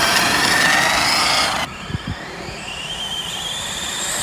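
Twin electric motors of an FTX Banzai RC speed-run car whining at half power, the pitch rising as it speeds up. About a second and a half in, the sound cuts off sharply, then another rising whine builds toward the end.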